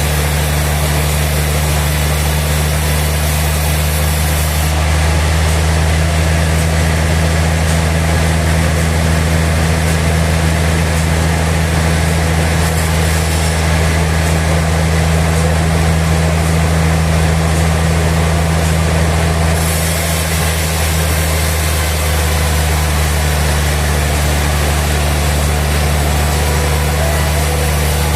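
Sawmill machinery running steadily: a deep, even engine-like hum with constant noise over it.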